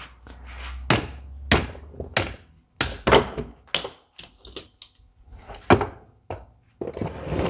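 About a dozen sharp knocks, unevenly spaced, as tools work on a stuck part of a Ford 10-series tractor's diesel fuel injection pump during disassembly.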